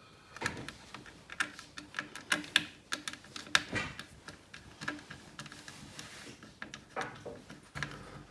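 Irregular small clicks and taps of screws and a screwdriver being handled at the laptop's SSD bay while the drive's retaining screws go back in.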